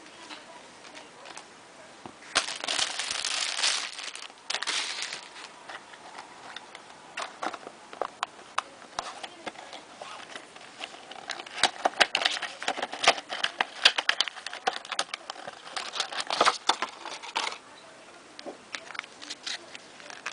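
Packaging being handled: a couple of crinkling, rustling bursts, then a long run of sharp clicks and taps that dies down near the end.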